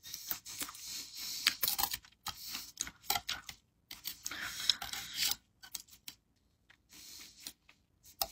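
Crisp rustling and crackling close to the microphone, in uneven bursts of about a second with scattered clicks: a person eating and handling food or its wrapping.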